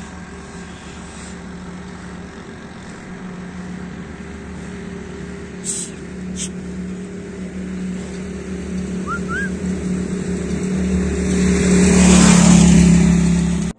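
A motor vehicle engine runs steadily with a low hum. Traffic grows louder and passes close about twelve seconds in, then the sound cuts off suddenly. Two short clicks come about six seconds in, and a brief bird chirp follows.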